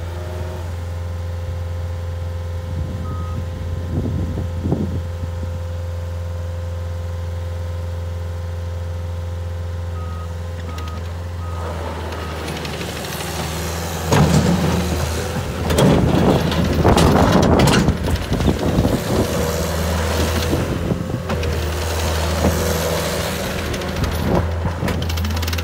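Caterpillar 277C compact track loader's diesel engine running steadily, with a steady whine over it and a few short beeps from a backup alarm. About halfway through it gets much louder, with irregular rattling and clanking as the machine drives and turns on gravel.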